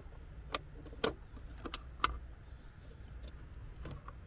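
A metal hook latch being unhooked on a small wooden plank door: four sharp clicks and knocks in the first two seconds, then a fainter one near the end.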